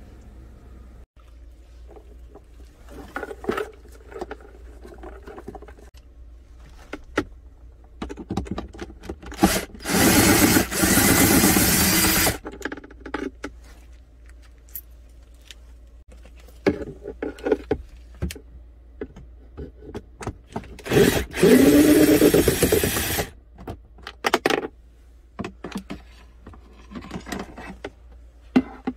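Cordless drill with a socket bit running in two spells of about two seconds each, the second starting with a rising whine, as it backs out bolts holding a van's center console. Scattered clicks and rattles of tools and plastic trim in between.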